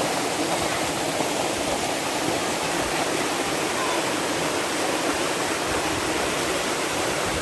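Water rushing over a small waterfall and down a rocky stream, a steady, even rush.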